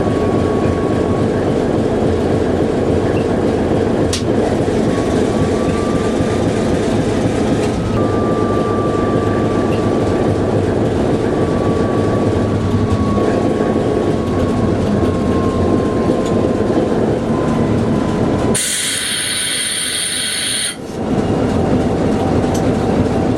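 Diesel-hauled passenger train running on the rails, a steady loud rumble with a thin high squeal that drifts slowly in pitch. The sound changes abruptly about three-quarters of the way through.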